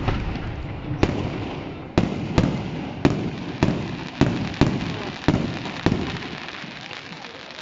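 Fireworks display: a rapid series of sharp bangs, about one or two a second, each trailing a rumbling echo. The bangs stop near the end, leaving the rumble dying away.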